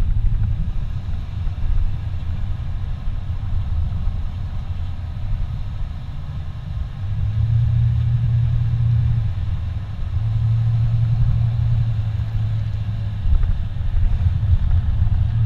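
Car cabin noise while driving on a paved highway: a steady low rumble of engine and tyres, with a low hum that swells twice partway through.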